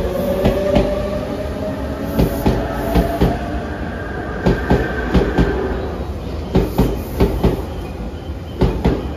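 Tobu 100 series 'Spacia' limited express electric train pulling out and passing close by. Its traction motors whine, rising in pitch as it accelerates for the first half, and its wheels click over rail joints in quick clusters about every two seconds as each car goes by.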